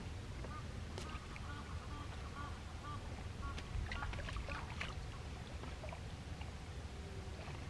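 Water sloshing and splashing at the river's edge as a carp is lowered in a wet sling into the shallows for release, with short splashes clustered in the middle. A bird calls in a quick run of short, repeated notes in the first half.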